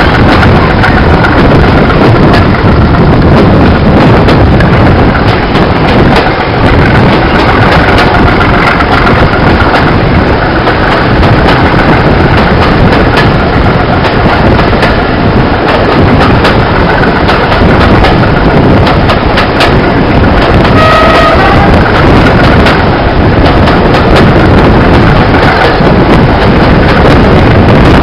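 Heritage railway carriage running along the line, heard from an open window: a loud, steady rush of wind and running noise from the moving train. A short high tone sounds about three quarters of the way through.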